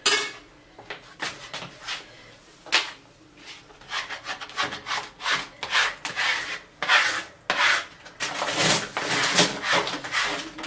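Plastic squeegee swept over self-adhesive wallpaper on a wall to press and smooth it down: a series of short rubbing strokes, few at first and coming quickly one after another from about four seconds in.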